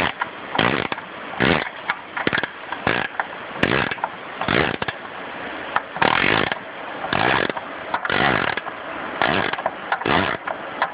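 Ratchet wrench worked back and forth on a belt-tensioner bolt, a rasp of pawl clicks with each swing at a little over one stroke a second, irregular. The wrench is set the wrong way and is loosening the bolt.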